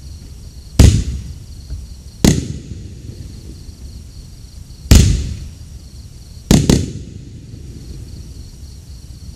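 A 500-gram consumer firework cake firing its aerial shells, which burst in five sharp, loud bangs with rolling echoes. The bangs come about one to two and a half seconds apart, and the last two follow each other a split second apart as the two-shot finale.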